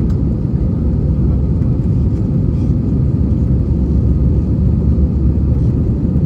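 Airbus A320-200 airliner's steady low rumble of engines and airflow, with a faint steady hum over it.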